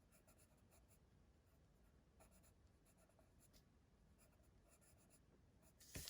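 Faint scratching of a watercolour pencil making short strokes on cardstock, with a louder scrape near the end.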